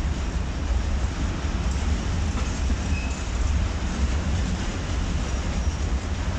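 Freight train of covered grain hopper wagons rolling past, a steady rumble of wheels on rails.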